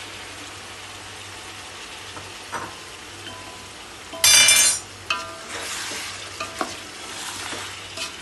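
Chicken sizzling as it fries in a large aluminium pot, stirred with a wooden spoon through the powdered spices. About four seconds in, a loud ringing scrape against the pot lasts about half a second, with a few short knocks of the spoon before and after.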